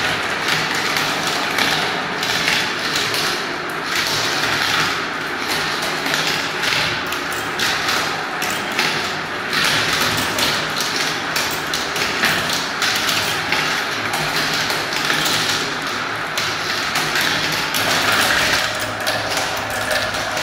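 Many small balls rolling and swirling around the clear plastic funnel bowls of a plastic marble run and dropping through its tubes. The result is a continuous clatter of dense, overlapping clicks and taps.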